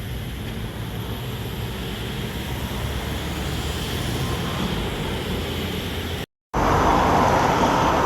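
Steady vehicle rumble that slowly grows louder. It breaks off into a split second of silence about six seconds in, then carries on louder.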